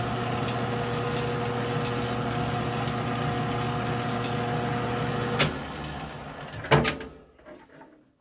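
Metal lathe spindle running in reverse with a steady motor and gear hum, backing a threading die off a freshly cut thread. About five and a half seconds in there is a click and the hum winds down, followed by a single sharp metallic knock.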